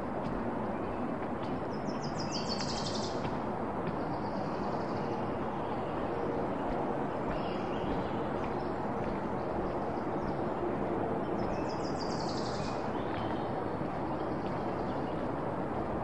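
A songbird sings twice, about ten seconds apart, each time a quick run of high notes falling in pitch over about a second. Beneath it runs a steady rushing noise.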